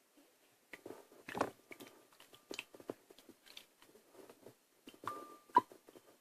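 Hands stirring and squishing Play-Doh in water in a bowl: irregular wet squelches and small knocks, with a sharper knock about five and a half seconds in.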